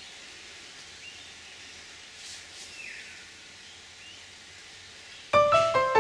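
Faint outdoor ambience with a few distant bird calls, one of them a short falling note. About five seconds in, solo piano music starts loudly, note after note.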